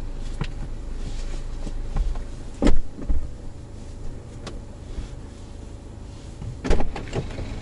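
A passenger getting into the back of a BMW 520d: a car door shuts with a heavy thump about two and a half seconds in, and a second thump comes near the end, over the car's steady low hum.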